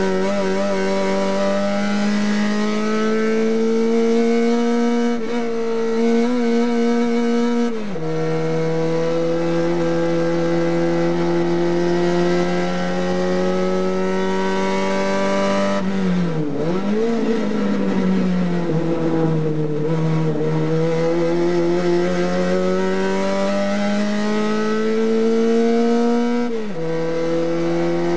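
Race car engine at high revs, heard from inside the cockpit. The revs climb steadily and drop sharply with an upshift about eight seconds in. Midway they fall and waver through a corner as the driver brakes and shifts down, then climb again, with another sharp drop at an upshift near the end.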